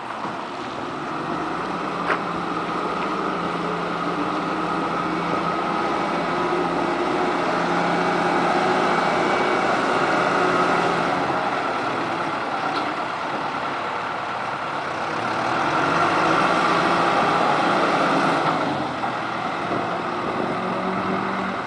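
John Deere 160 excavator's diesel engine running steadily, getting louder twice, around the middle and again near the end, before settling back.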